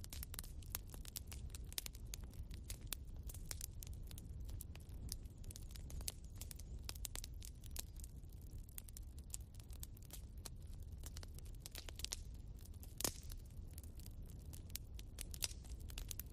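Faint wood fire crackling: irregular sharp pops and snaps over a low rumble, with one louder pop about 13 seconds in.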